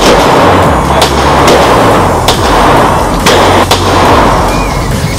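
Sig Sauer P226 9mm pistol firing in an indoor range lane: about six sharp shots, irregularly spaced half a second to a second apart, over background music.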